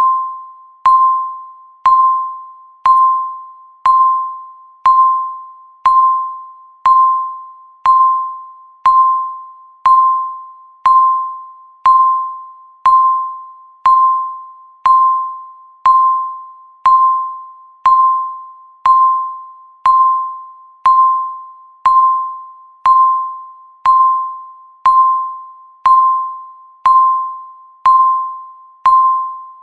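Countdown timer beeping once a second: a single high electronic beep with a sharp start that fades away before the next, one for each second left in the count.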